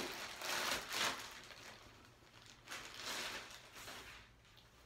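Clear plastic poly mailer bag crinkling and rustling in a few irregular bursts as a garment is pulled out of it and handled.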